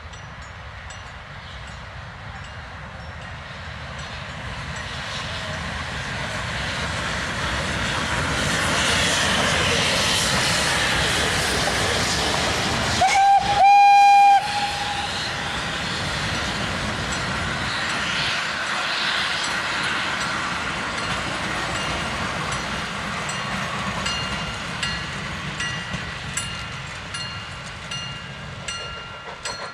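A steam locomotive hauling old wooden coaches passes close by, its sound building up and then fading. Near the middle it blows its steam whistle once, a loud single note lasting about a second and a half. The coaches then roll past with wheels clicking over the rail joints.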